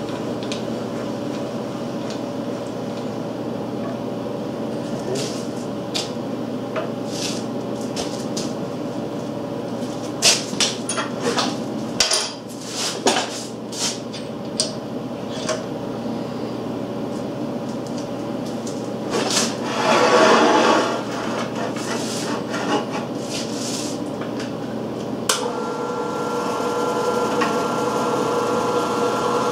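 Metal clinks and knocks of tools on the radial drill's head as the feed handle is taken out and refitted, with a brief scraping about 20 seconds in. About 25 seconds in, the drill's electric motor starts and runs with a steady hum.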